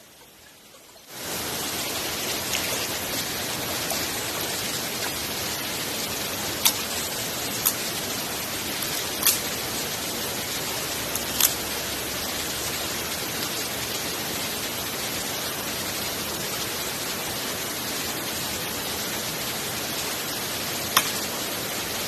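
Steady rushing of a small waterfall and stream that starts abruptly about a second in, with a handful of sharp clicks scattered through it.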